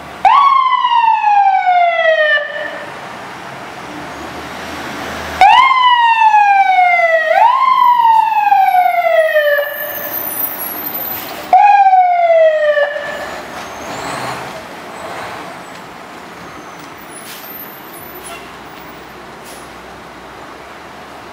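Fire engine siren sounded in short bursts. Each sweep jumps up quickly and then falls in pitch over about two seconds: one sweep, then two in a row, then a shorter one. After that there is only a lower, steady vehicle noise.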